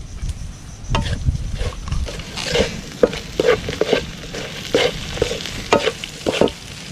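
Wooden spatula scraping and stirring prawns and garlic in a metal wok, the food sizzling as it fries. Irregular scrape strokes start about a second in and repeat every half second or so.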